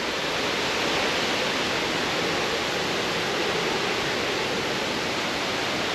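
Steady rush of fast-flowing river water, an even hiss with no breaks.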